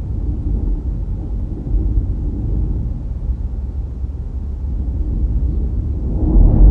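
Low rumble of a car driving along a road: road and wind noise, growing louder near the end.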